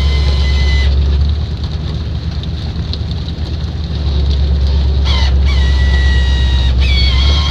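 Hydraulic winch and deck machinery on a salmon purse seiner hauling the fish-filled bunt aboard: a heavy low drone with a high squealing whine over it. The whine breaks off about a second in and comes back about five seconds in, kinking upward in pitch twice.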